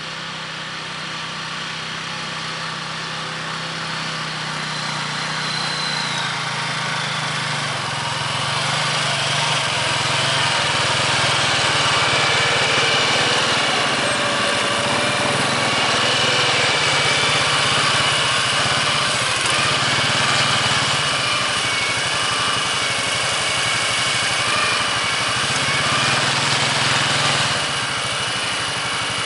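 ATV engine running under load as it pulls a single-bottom plough through the soil, with a steady high whine. It grows louder over the first dozen seconds as it approaches, then holds, easing off slightly near the end.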